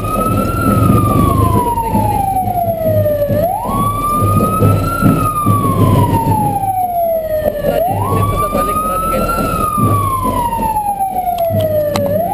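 Wailing siren that rises quickly and falls slowly, one cycle about every four seconds, over motorcycle engine and road noise. A few taps of fingers on the camera near the end.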